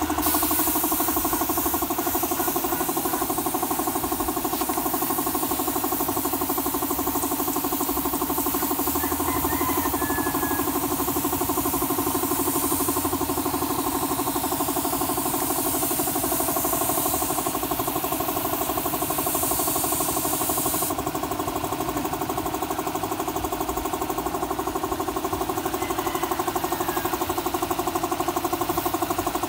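Portable air compressor running with a steady drone, while a spray gun hisses as it sprays; the hiss cuts off abruptly about two-thirds of the way through and the compressor runs on.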